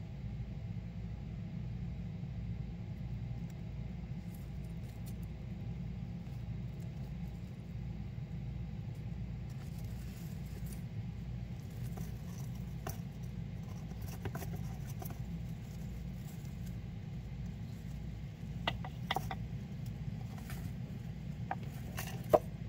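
Dwarf hamster moving through seed husks and dry bedding: scattered small clicks and rustles, a few sharper ones near the end, over a steady low hum.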